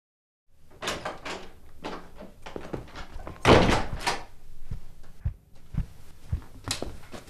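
A room door knocking and thudding as a man comes through, the loudest thud, a door closing, about three and a half seconds in, among scattered smaller knocks and bumps.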